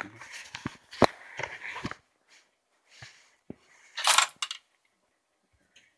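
Handling noises on a countertop: scattered clicks and taps with short rustles, then a louder scraping rustle about four seconds in.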